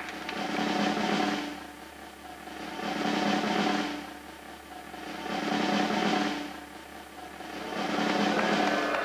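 Snare drum roll for a suspense moment, swelling and fading about every two and a half seconds, four swells in all.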